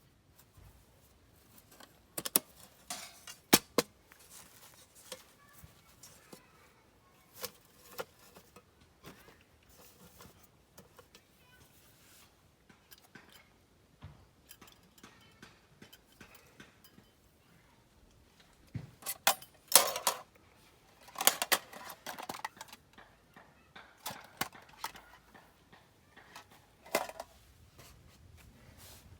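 Camp gear being handled: scattered clicks, clinks and short clatters, like metal cookware and utensils being set down and moved, with the busiest clusters a few seconds in and again about two-thirds of the way through.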